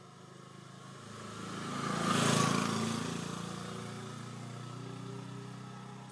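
A motor vehicle passing: a low engine hum swells to its loudest about two seconds in, with a rush of tyre and wind noise at the peak, then fades away.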